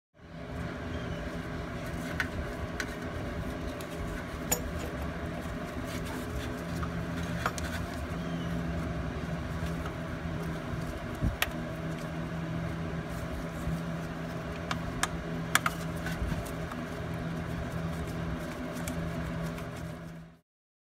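Scattered light metallic clicks and clinks of hand tools and the thermostat cover being handled under the engine, over a steady low hum.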